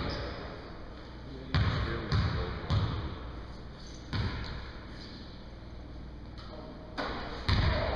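A basketball is bounced a few times on a hardwood gym floor by a free-throw shooter. Each bounce is a sharp knock that echoes in the hall, and there are louder knocks near the end.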